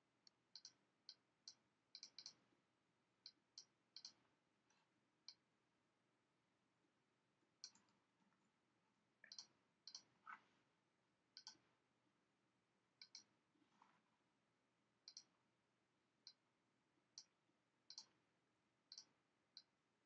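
Faint, irregular computer mouse clicks, some in quick pairs, placing anchor points while tracing vector shapes, with a keyboard key press about ten seconds in.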